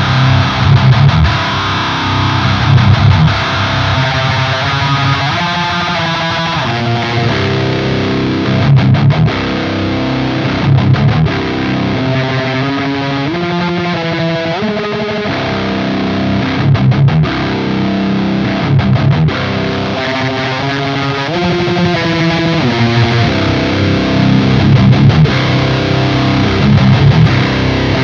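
Heavily distorted electric guitar playing chugging metal riffs through a Lichtlaerm Audio Medusa, an HM-2-style "Swedish chainsaw" distortion pedal, into a Peavey 6505 amp. The riffs repeat on a loop while the pedal's tone shifts.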